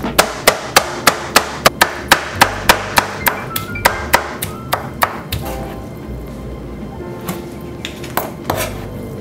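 Meat cleaver chopping cooked beef on a plastic cutting board: quick, even strikes about three a second for the first five seconds, then only a few scattered chops, over background music.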